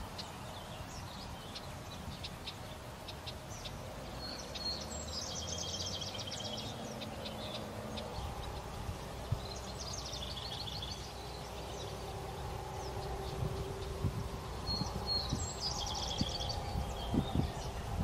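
A small songbird repeating one short, high, trilled song three times, about five seconds apart, over a steady low rumble of outdoor background noise.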